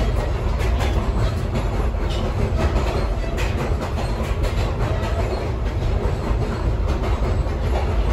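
Ride noise heard from inside a caboose: a steady low rumble of the train rolling along the track, with scattered wheel clicks and rattles from the car.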